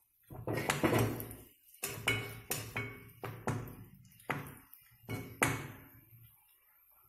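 Perforated steel ladle scraping and clinking against a non-stick kadai as raisins are stirred in hot ghee: about ten quick strokes, the first the longest and loudest.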